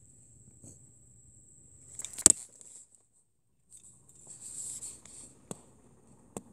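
Air conditioner making an abnormal noise: a thin, steady high-pitched whine, broken by sharp clicks, the loudest cluster about two seconds in, and a brief hiss a little after the middle.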